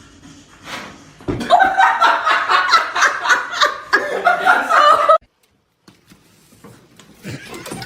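A person laughing in rapid repeated bursts for about four seconds, cut off suddenly.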